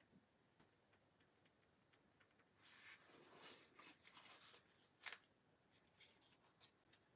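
Faint pen strokes on notebook paper, then about two and a half seconds in, soft paper rustling as a sticky note and tab are handled on the page, with a sharp tick about five seconds in.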